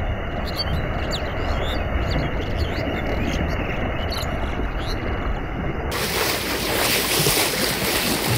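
Heavy water splashing and churning as people surge through waist-deep river water, over a low rumble. About six seconds in the splashing turns brighter and hissier, loudest near the end, as the spray comes close to the microphone.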